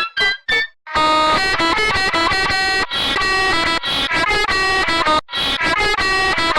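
A bus horn sample pitched up and down to play a tune: a few short honks, a brief break about a second in, then a run of longer held notes.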